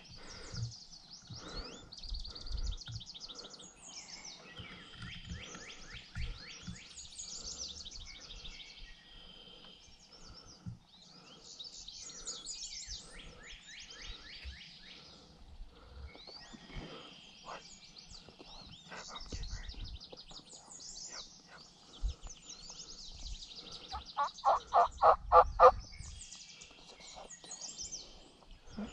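Wild turkey gobbler gobbling once near the end, a loud rapid rattling call, over songbirds chirping throughout.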